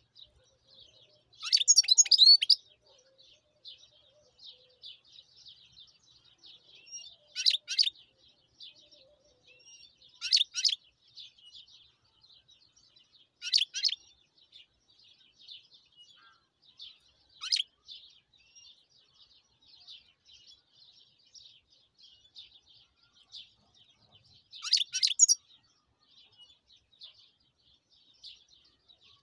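European goldfinch singing: a continuous fast, high twitter, broken every few seconds by a louder burst of notes.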